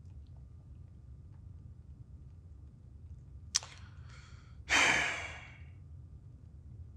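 A man's lip click and a quick breath in, then a long sigh out about five seconds in that fades away over a second.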